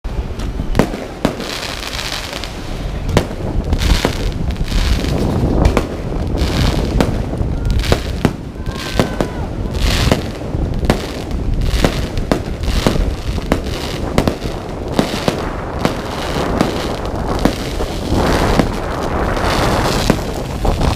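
Fireworks display: a rapid, irregular series of loud bangs from shells bursting overhead, with crackling between them.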